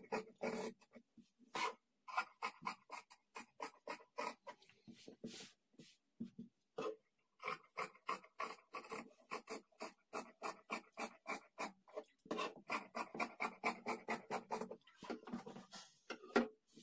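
Large tailoring scissors snipping through folded blouse fabric in quick runs of cuts, about five snips a second, with short pauses between runs as the hand moves along the chalk outline.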